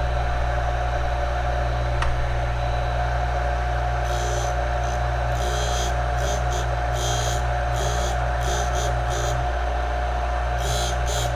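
Bench grinder motor running with a steady hum. From about four seconds in come repeated short bursts of high-pitched grinding as a 14 mm drill bit, held in a drill-sharpening fixture, is swung against the wheel to put a fresh point on it.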